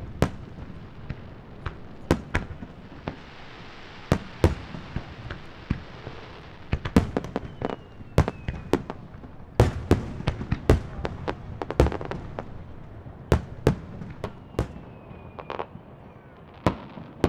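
Aerial display fireworks bursting overhead: more than a dozen sharp bangs at irregular intervals, some coming in quick runs of two or three, with a low rumble trailing the bigger ones.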